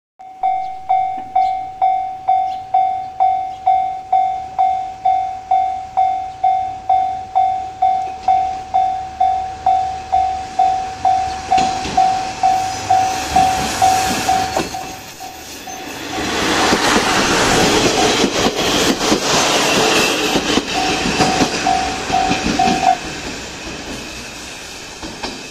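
Japanese level-crossing warning bell dinging steadily, about two strokes a second. From about halfway in, a two-car ex-JNR diesel railcar set (KiHa 38 + KiHa 37) approaches and passes, its engine noise and a clatter of wheels over rail joints swelling and then easing off. The bell stops a couple of seconds before the end.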